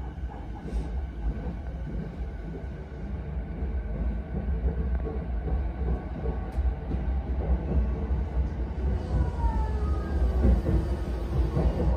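Yokosuka Line electric train heard from inside the car as it pulls away and picks up speed. The rumble of wheels on rail grows steadily louder, under a faint whine from the traction motors that climbs in pitch.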